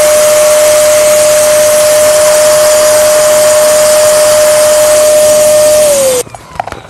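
Electric balloon pump running with a steady whine over a rush of air as it inflates a plastic toy. About six seconds in it is switched off, its pitch sagging as it stops, followed by light rustling of plastic.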